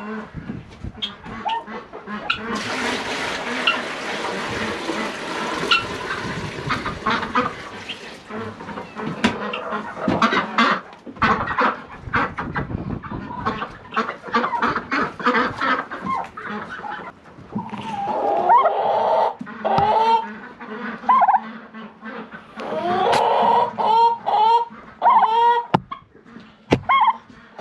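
A mixed barn flock of chickens, ducks and turkeys calling close by, with many sharp taps and knocks near the microphone. A rushing noise starts about two seconds in and lasts some five seconds, and short rising-and-falling bird calls come thick in the last third.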